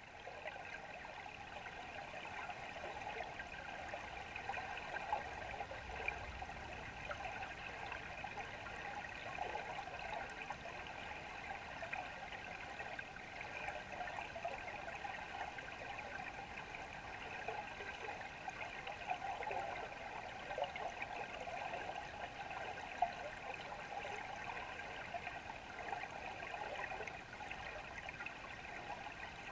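Steady rushing of river current picked up by an underwater camera, a muffled, even flow with a few faint ticks.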